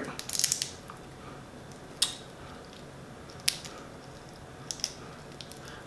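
Boiled crawfish shell cracking as it is peeled apart by hand: a quick run of small sharp cracks at the start, then single cracks now and then.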